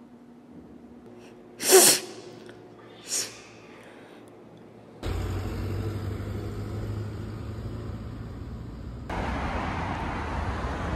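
A person sneezing sharply once, then a smaller second sneeze about a second and a half later. After that comes steady street noise with a low traffic rumble.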